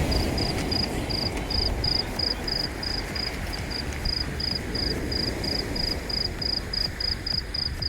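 A cricket chirping steadily in short, evenly spaced high chirps, about three to four a second, over a steady low outdoor rumble.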